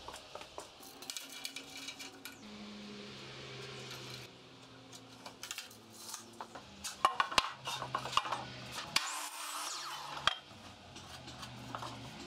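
A pine 2x4 being handled and marked, then set against a miter saw's fence and table: scattered knocks, taps and short rubbing of wood on wood and metal, with a louder cluster of knocks about seven to eight seconds in. Low steady tones that step in pitch run underneath.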